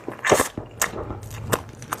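Close-miked eating: a braised chicken drumstick being bitten and chewed, with several short, sharp wet smacks and crackles.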